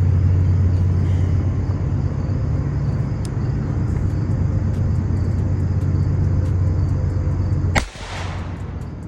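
Loud, steady low rumble, then one sharp crack about three-quarters of the way through, fitting a gunshot.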